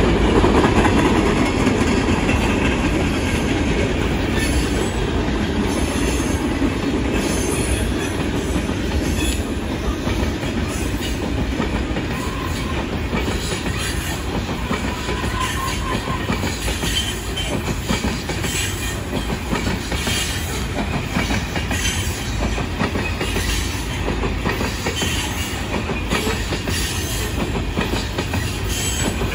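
Freight cars of a passing train rolling by, their steel wheels clacking over rail joints in an uneven rhythm above a steady low rumble.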